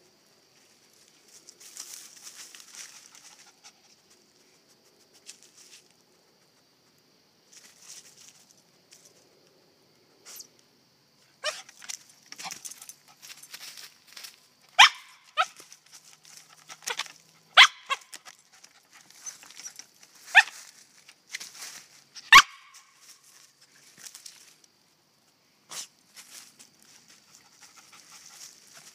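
Havanese dog snuffling at a log among dry leaves, then giving a string of short, sharp, high barks a second or two apart in the middle of the stretch, some falling in pitch, as it hunts a chipmunk hiding under the log.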